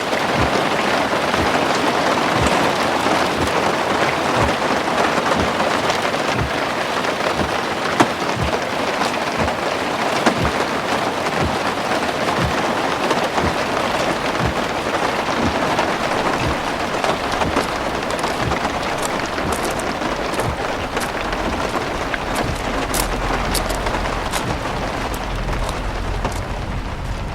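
Steady heavy rain falling, with many separate drop hits over an even hiss. A low rumble comes in near the end.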